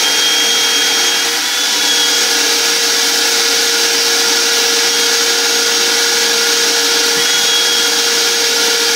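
Car vacuum running steadily through its hose, a high hum over a strong rushing hiss, as it sucks sand out of the car's seat creases.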